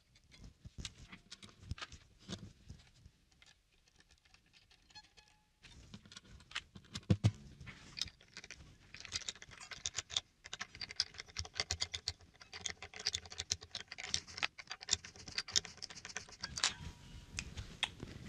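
Light clicks, taps and rattles of steel guitar strings and tuning machines being handled at the headstock while a 12-string acoustic guitar is restrung. The clicks are sparse at first and come thicker from about six seconds in, with a few faint short ringing tones among them.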